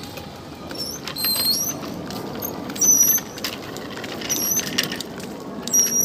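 A high, short squeak repeating about every second and a half, in step with the turning wheel of a toddler's small bike rolling slowly over brick paving, with a low rolling rumble beneath.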